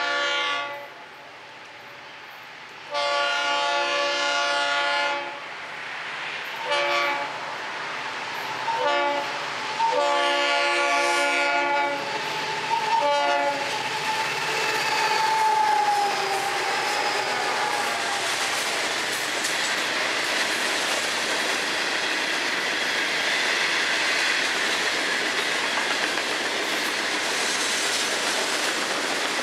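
Florida East Coast freight train's diesel locomotive air horn sounding a series of long and short blasts over the first dozen seconds, then the locomotives and a string of hopper cars passing close by, wheels clicking and rumbling steadily over the rails.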